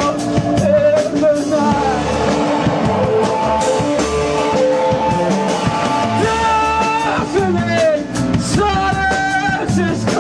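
Rock band playing live: electric guitar, bass and drum kit, with a singer holding long, wavering notes over the band.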